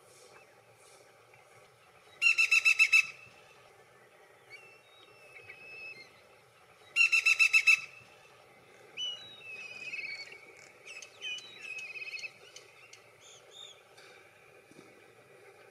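Black-rumped flameback woodpecker calling twice, each call a fast run of about eight loud notes in under a second, the two calls about five seconds apart. Fainter, varied chirps and short whistled notes follow.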